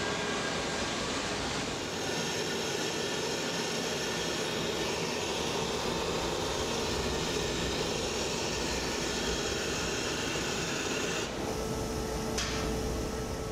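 Steady rushing noise of a glass furnace. About two seconds in it gives way to a continuous hiss and bubbling as red-hot glass gathers on blowpipes are held in a bucket of water. The high hiss drops away near the end.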